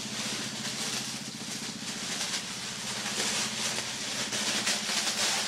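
Clear plastic packaging bag crinkling and rustling continuously as a tactical vest is pulled out of it.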